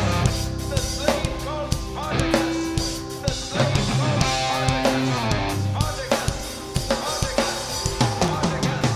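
Rock music played by a band: a drum kit with kick and snare keeping a steady beat under sustained, bending electric guitar notes.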